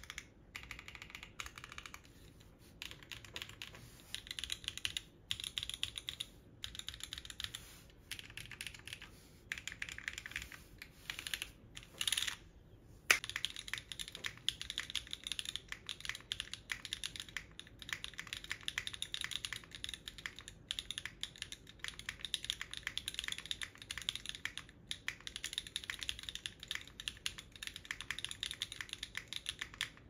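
Typing on a PC Mode Envoy mechanical keyboard with Alexotos Obscura switches, an FR4 plate and no foam, its PCB not screwed in: fast runs of keystroke clacks with short pauses. About thirteen seconds in comes one sharper, louder knock.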